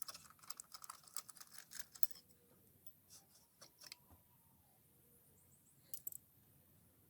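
Light metallic clicks and small rattles of tools and engine parts being handled: a quick run of clicks over the first couple of seconds, a few scattered ones after, and a short cluster about six seconds in.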